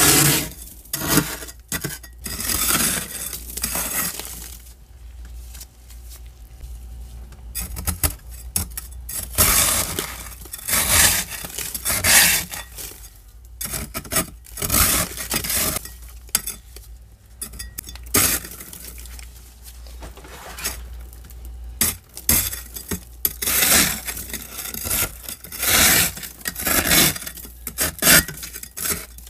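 A metal scraper digging and scraping into thick freezer frost build-up, in repeated irregular strokes that come in runs with brief pauses.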